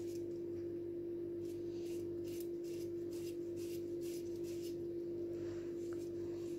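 Avocado being grated on a plastic hand grater: a string of light, irregular rasping strokes, about two a second. A steady hum runs underneath.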